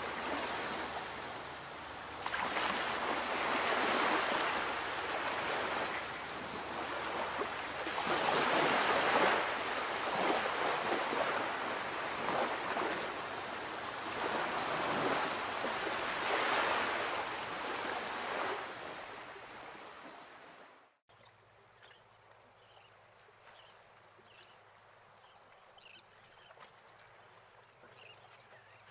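Rushing noise of waves washing, swelling and fading every few seconds, cuts off abruptly about two-thirds of the way in. After it comes a quiet stretch with faint, scattered high chirps of small birds.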